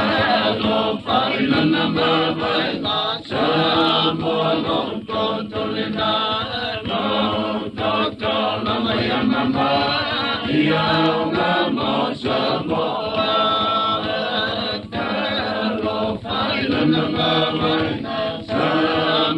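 A group of voices singing a traditional Samoan song together in a chant-like choral style, continuous and full.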